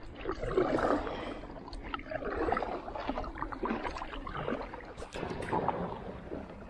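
Kayak paddle strokes in the water, with water sloshing around the hull, a swell of splashing roughly every second and a half. Near the end the kayak runs in to the shallows of a sandy beach, where small waves lap against the bow.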